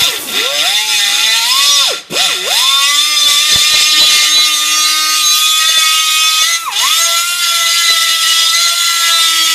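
Die grinder with a rotary burr grinding out a crack in a cast aluminum transmission case: a steady high whine over a hiss of cutting. About two seconds in it stops for a moment and spins back up in a rising whine, and near seven seconds the pitch briefly sags as the burr is pressed in.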